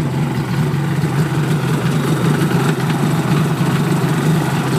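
2002 Yamaha WaveRunner XLT's freshly rebuilt two-stroke engine idling steadily.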